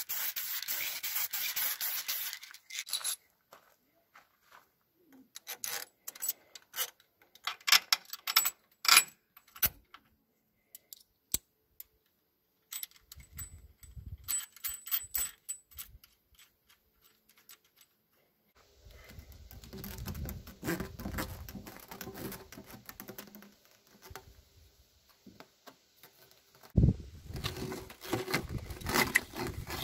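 An aerosol spray-paint can hissing for about two seconds as it coats a small steel bracket, then scattered metallic clicks and taps. Later comes the rustle and scrape of rubber hoses being handled and pushed onto fittings.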